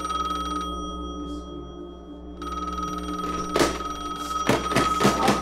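A steady high ringing tone that thins out for under two seconds near the start and comes back. Several sharp knocks follow in the second half.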